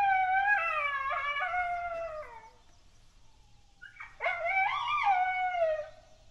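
Two long coyote howls. The first wavers and fades away about two and a half seconds in. The second rises sharply about four seconds in and slides down before stopping near the end.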